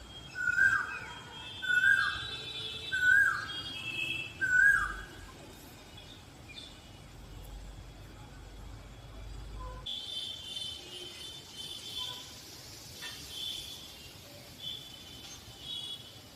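Asian koel calling: four repeated whistled notes, each ending in a downward hook, about a second and a half apart, with other small birds chirping higher. After about ten seconds the koel stops and only the faint chirping of other birds goes on.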